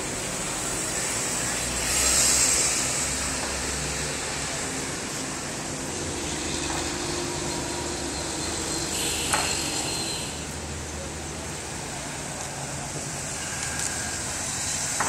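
Road traffic: a steady hum of vehicles on a city street, swelling louder about two seconds in as one passes close. A short sharp click about nine seconds in.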